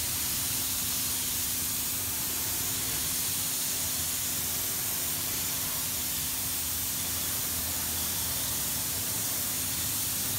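Steady spraying hiss from a tool working over a plastic headlight lens during restoration, with a faint steady hum beneath.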